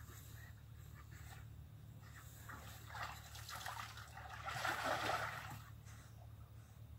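A dog swimming in a garden pond, the water splashing and sloshing softly and peaking for about a second some four and a half seconds in.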